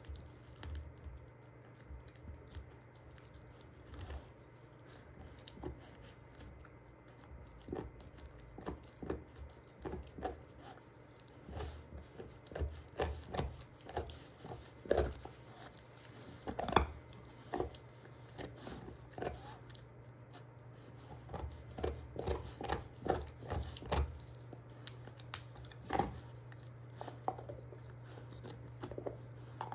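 A German shorthaired pointer gnawing a beef soup bone: irregular crunches and cracks of teeth on bone, sparse at first, then coming thick and fast through the middle, with sharp cracks a little past halfway. A steady low hum runs underneath.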